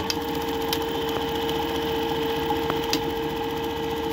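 Juki 761 industrial buttonholing machine sewing a test buttonhole in cloth: a steady motor hum with fast, even stitching and a few light clicks.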